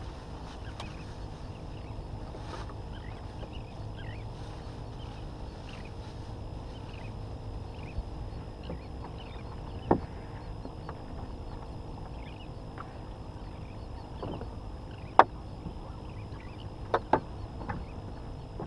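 Small fishing skiff drifting on calm water with its motor off: a low steady wash, and a few sharp knocks, the loudest about ten and fifteen seconds in, with two more close together near the end.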